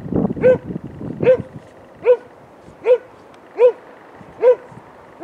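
A dog barking in a steady run of single barks, a little more than one a second. It is a search dog's bark indication: barking at a found person in area-search training.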